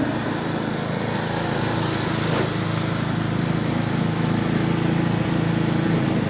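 Big gas snowblower engine running steadily.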